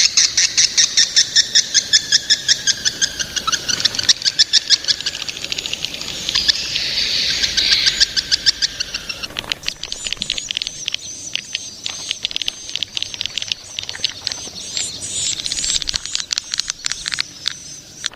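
Young swiftlets calling: fast, even trains of sharp chirping clicks. About ten seconds in, these give way to a denser, higher-pitched twittering chatter.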